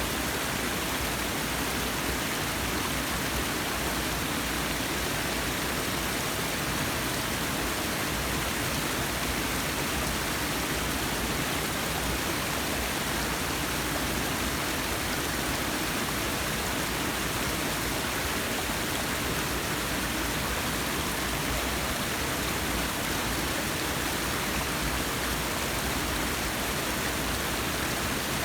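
Forest waterfall: water falling and splashing in a steady, unbroken rush.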